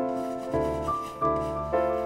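Background piano music: soft chords, a new one struck about every half second and each left to ring.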